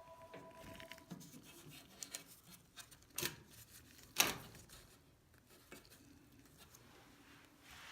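Faint clicks, rubbing and light knocks of parts or tools being handled, with two sharper knocks about three and four seconds in.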